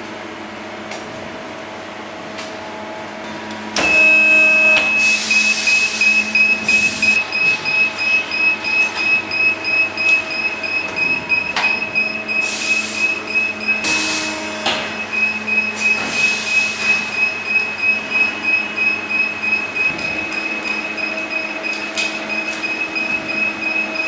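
Hydraulic skateboard deck transfer press starting up and running as a deck is fed under its heated transfer wheel: a sudden start about four seconds in, then a steady high whine over machine noise that pulses about three times a second.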